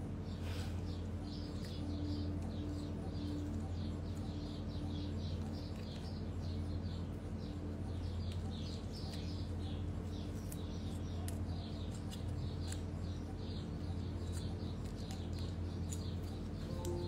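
Faint crinkles and clicks of tiny origami paper being folded by hand, over a steady low hum and continual high chirping in the background, several chirps a second.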